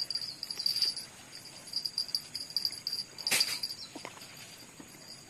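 Insects trilling in a high, pulsing chorus, with one short sharp sound about three seconds in.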